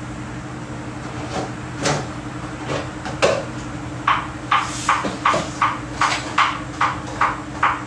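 A spoon scraping sambal out of a pan into a container. There are a few separate scrapes at first, then a quick regular run of about three strokes a second through the second half, over a steady low hum.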